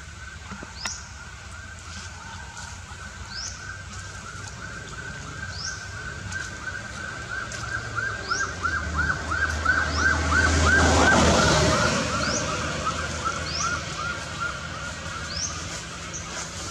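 Forest insects trilling: a fast, even pulsing buzz that swells to a loud peak about two-thirds of the way through and then fades. Over it, a short rising chirp repeats every second or two.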